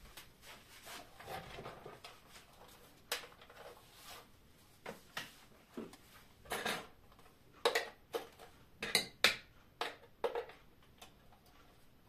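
Kitchen items being handled on a counter: plastic containers and the metal beaters of a hand mixer, making irregular light clicks, taps and clinks, with several sharper ones in the second half.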